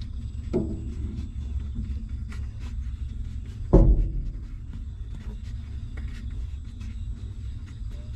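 Newborn puppies suckling at their mother: a scatter of small wet clicks over a steady low rumble. Two dull knocks, a light one just after the start and a louder one about four seconds in.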